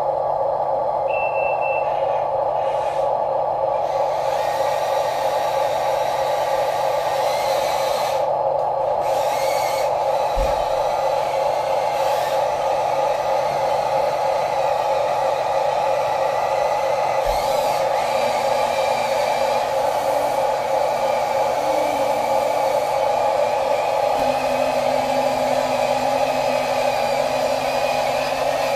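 Steady whir of the small electric motors in radio-controlled toy construction vehicles working, with a couple of brief low knocks.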